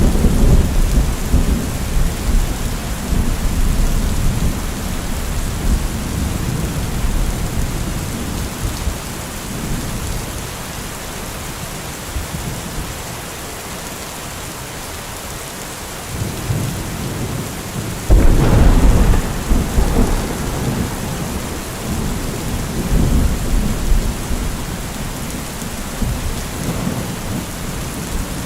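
Heavy rain hissing steadily, with deep rolling rumbles under it. The loudest rumble starts suddenly about eighteen seconds in and dies away over several seconds.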